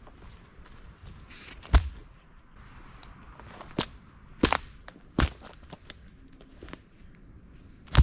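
Dead wood cracking and knocking: about five sharp, separate snaps, the loudest nearly two seconds in and another at the end, as branches are broken and handled for a shelter frame.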